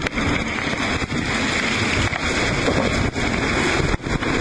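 Strong wind buffeting the microphone over rushing seawater and spray sweeping across a sailing yacht's deck in gale conditions, a loud, steady noise.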